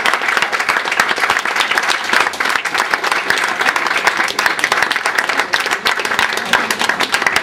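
Crowd applauding: many hands clapping in a dense, unbroken patter.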